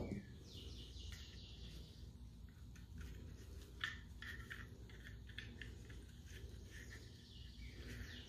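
Faint handling noise of a Sig P365 pistol frame and its small parts in gloved hands: one sharp click at the start, a smaller click a little under four seconds in, and scattered light ticks and rubbing between them.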